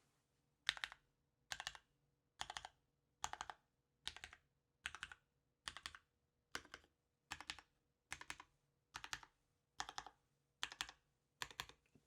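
Mechanical keyboard with lubed NOS vintage Cherry MX Black linear switches on 67 g springs, in an aluminium-plate MEME 65% gasket-mount case with GMK keycaps, being typed in an even rhythm: about one quick flurry of several key clicks a little under every second.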